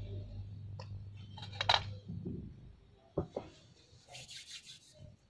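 A few light clinks and knocks of a steel plate and dishes being handled, the loudest about a second and a half in, over a low hum that fades out about two seconds in.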